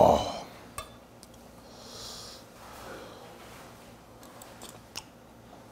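A man lets out a voiced 'ahh' right at the start after a spoonful of hot, spicy eel soup, then a short sniff about two seconds in. A few faint clicks of a metal spoon against the stainless steel bowl.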